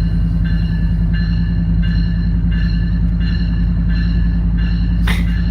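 Locomotive-style bell ringing steadily, about three strikes every two seconds, over a loud steady low rumble and drone. A brief rushing sound passes about five seconds in.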